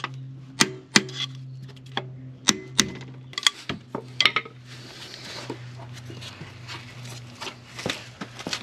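Sharp metallic taps, about a dozen at uneven intervals, struck on the starter motor of a 2012 Kia Soul to jar a starter that only clicks and won't crank. A steady low hum runs underneath.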